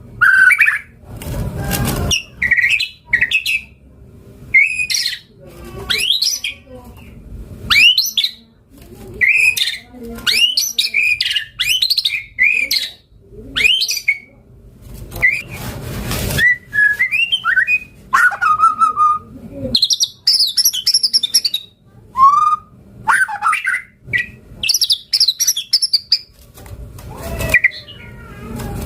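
White-rumped shama (murai batu) singing a long, varied song: phrase after phrase of loud whistled notes, rising and falling glides and quick trills, separated by brief pauses. A few short bursts of noise come through, about two seconds in, around the middle and near the end.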